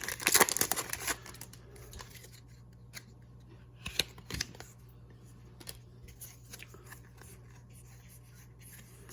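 Foil wrapper of a Pokémon booster pack crinkling as it is opened, loudest in the first second. A few light clicks and rustles follow as the cards are handled.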